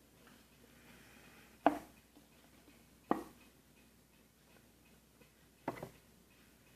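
Three sharp knocks of things being handled on a tabletop, about a second and a half apart and then about two and a half, the last one doubled.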